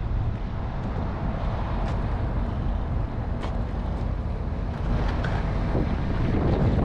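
Wind buffeting the microphone outdoors: a steady, uneven low rumble with a few faint clicks.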